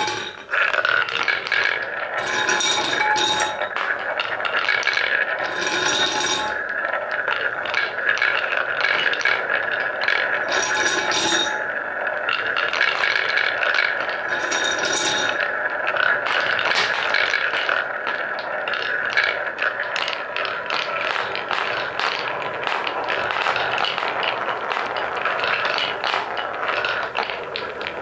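Many wooden balls rolling and clacking together around a wooden funnel bowl and along wooden block track, a dense continuous rattle of rolling and knocking wood. Four times in the first half a brief ringing note sounds over it.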